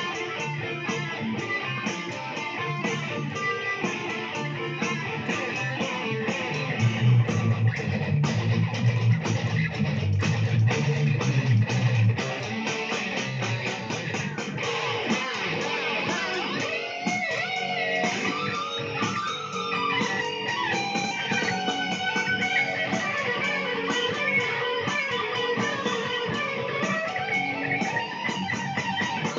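Electric guitar being played, with heavier low notes for a stretch about a quarter of the way in, then higher lead lines with sliding, bent notes through the second half.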